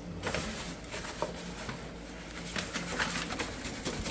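Paper flour bag rustling and crinkling as hands shake flour-breaded shrimp inside it to knock off the excess breading: a run of irregular, crisp crackles.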